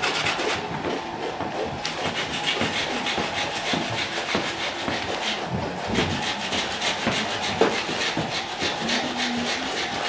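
A yellow drawing stick rubbed back and forth over the rough, thickly layered paint of a painting board, in quick scribbling strokes several times a second.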